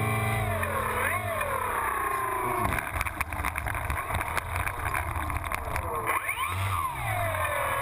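Electric motor and propeller of a Kyosho Calmato 60 RC plane converted to electric, whining and surging up and down in pitch as the throttle is worked. It drops off sharply a few seconds in, then comes a stretch of quick rattling knocks as the plane rolls over grass, and it revs up again near the end before easing off.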